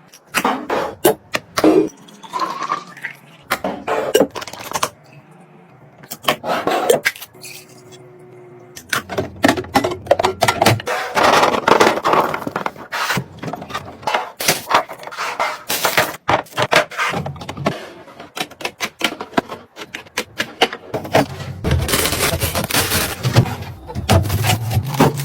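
Restocking handling sounds: a quick run of clicks, knocks, clinks and scrapes as containers, bottles and lids are handled, opened and set down, with a quieter stretch in the middle.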